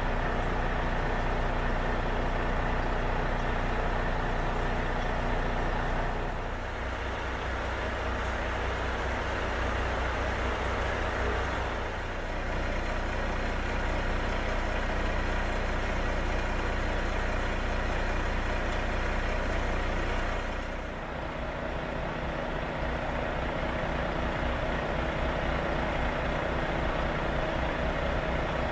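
Renault Magnum 520's six-cylinder common-rail turbo diesel idling steadily, its tone changing character a few times.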